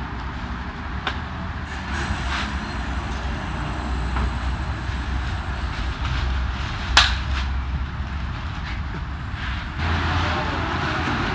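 A steady low engine rumble, with scattered knocks from cardboard boxes being handled and one sharp knock about seven seconds in.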